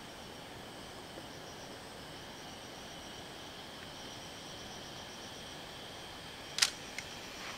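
Steady, finely pulsing high-pitched chorus of insects, with one sharp click near the end, the shutter of a Nikon film SLR firing, followed by a fainter click.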